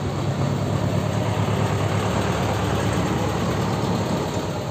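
An engine running steadily: a low, even rumble under a wide noisy hiss.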